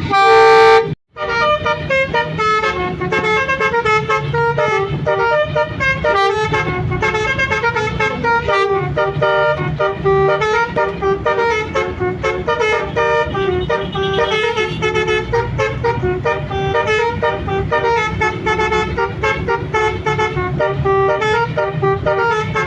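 Bus telolet melody horn: one loud blast, a brief break, then a continuous tune of quick changing notes, over the low hum of the bus engine.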